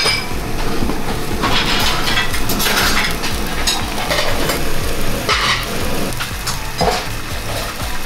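Clay tagines of rabbit stew sizzling and bubbling over gas burners, with several clinks and scrapes as the pottery lids are lifted off. The tagines are done after about an hour of slow cooking.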